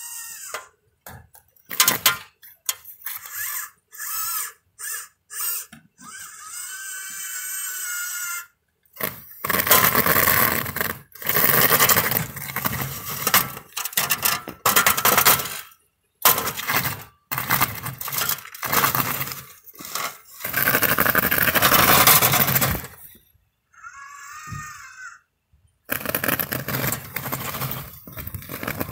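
A homemade remote-controlled snow-plow robot at work. Its drive motors whine in short spurts, and its plow blade scrapes and crunches through snow on pavement in loud stretches that start and stop abruptly.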